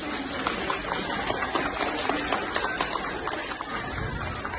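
Audience applause: many hands clapping in a dense patter, thinning out near the end.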